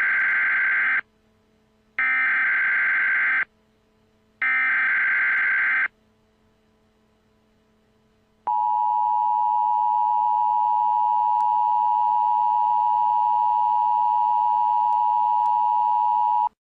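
Emergency Alert System SAME header: three bursts of data tones, each about a second and a half long, about a second apart. After a short pause comes the steady two-tone EAS attention signal, held for about eight seconds and cutting off near the end. Together they announce an emergency alert message.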